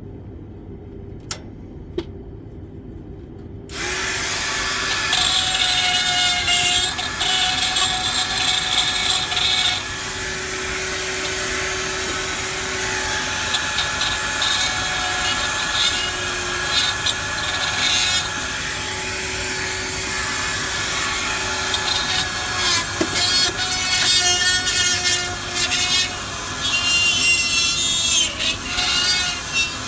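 After two faint clicks, a power-tool or machine motor starts about four seconds in and runs steadily with a high whine whose pitch wavers.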